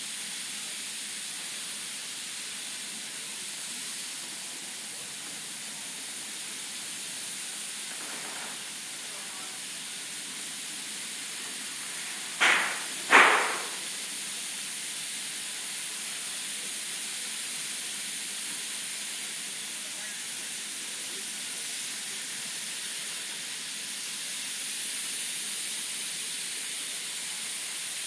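High-pressure water spraying from a PDQ LaserWash touchless car wash's gantry arm as it travels around a car, a steady high hiss. About halfway through, two short loud bursts come less than a second apart.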